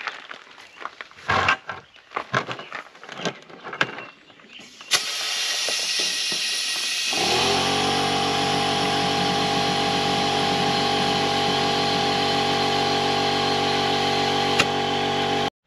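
Handling noises and steps, then about five seconds in a loud steady hiss of air starts, and about two seconds later an air compressor's motor starts running with a steady hum, inflating a flat tractor tire. Both stop suddenly near the end.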